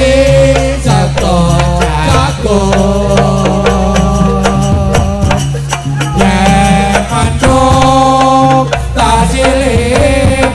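Loud amplified jaranan music from a live ensemble: constant drum and percussion strokes under a wavering held melody line, over a steady low bass.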